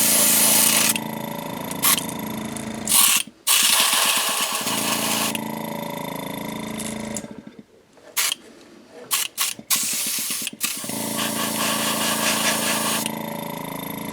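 Airbrush spraying paint in repeated passes, its air hissing in spells a couple of seconds long, over the steady hum of a small airbrush compressor. The compressor cuts out briefly twice, and a few sharp clicks come just past halfway.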